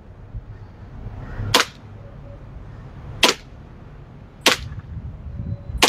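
JWC gas blowback airsoft pistol firing single shots on semi-automatic: three sharp cracks well over a second apart, with a fourth right at the end.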